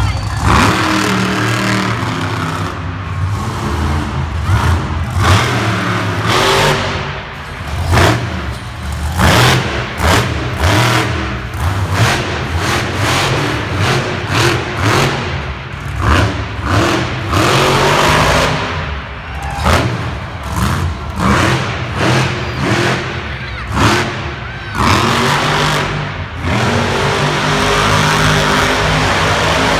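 Monster truck engines revving hard again and again, the loudness surging and dropping about once a second, then running more steadily near the end.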